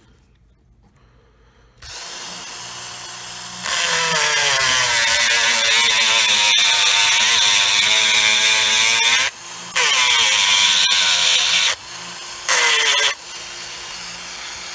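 Small high-speed rotary tool grinding metal, cutting the bottom plate off a cheap padlock. The motor starts about two seconds in and runs freely, then grinds loudly in three bouts, a long one, a shorter one and a brief one near the end, its pitch sagging under load each time.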